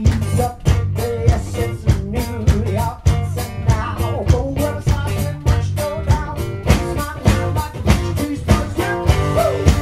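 Live blues-rock played on a double-neck guitar over a steady drum beat, with some singing.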